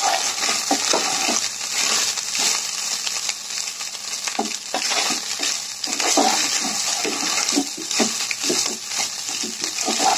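Spatula stirring and tossing egg fried rice in a nonstick pan to mix in the salt, with irregular scrapes against the pan over a steady frying sizzle.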